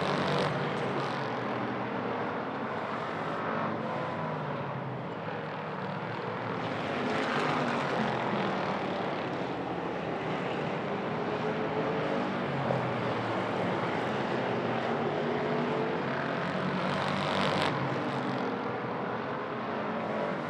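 A field of hobby stock race cars running laps on an oval track: several engines at once, their pitch rising and falling as the cars accelerate and lift through the turns.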